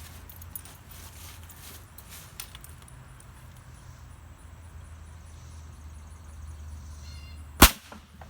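A single shot from a Marlin XT-22 bolt-action .22 rifle firing a CCI Quiet-22 low-velocity .22 Long Rifle round: one sharp, short report near the end, after a few faint clicks over a low steady hum.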